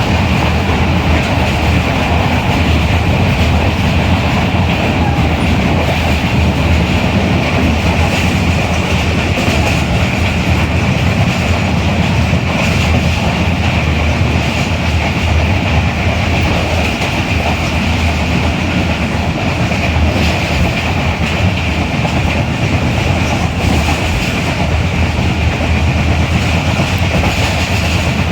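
Pakistan Railways Hazara Express passenger train running steadily along the track, its carriage wheels clattering over the rails with a continuous low rumble.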